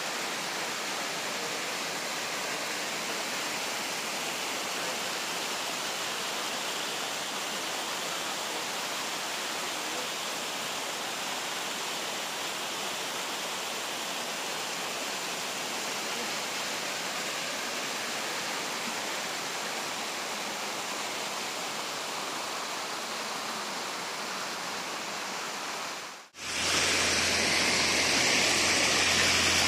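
Water spilling over a river anicut (weir), with a steady rushing sound. About 26 seconds in, the sound drops out briefly and comes back louder and closer.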